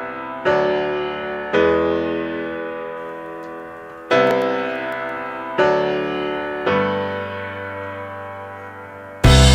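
Background music: slow piano chords, each struck and left to fade out, until a loud drum-driven rock section cuts in near the end.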